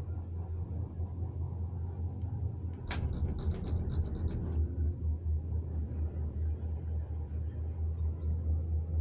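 Steady deep rumble of a gondola cabin riding the haul rope of Mexico City's Cablebús Line 1. About three seconds in comes one sharp clack, then a second and a half of fast rattling ticks as the cabin's grip runs over the rollers of a support tower.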